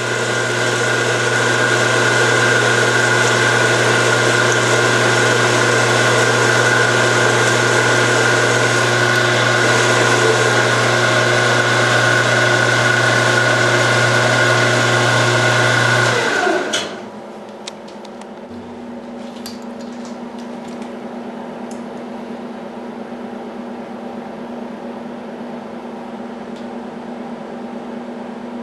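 Harbor Freight 9x20 bench lathe running steadily with a gear whine while turning a collar. A little over halfway through it winds down and stops, leaving a quieter steady hum and a few light clicks.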